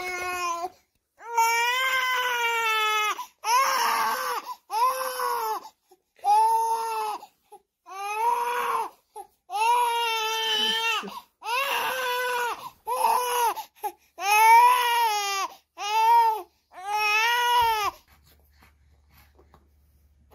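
Young baby crying in about a dozen separate wails, each one rising and then falling in pitch, with short breaths between them. The crying stops near the end.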